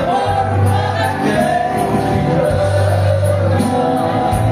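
Live music: a singer holding long sung notes over accordion and bass, with a steady beat.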